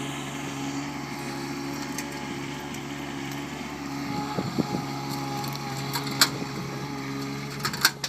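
AL20DX articulated loader's engine running steadily, with a few sharp knocks and clanks in the second half.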